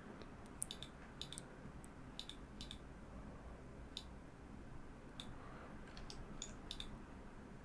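About a dozen faint, irregularly spaced clicks of a computer mouse over a low steady hiss.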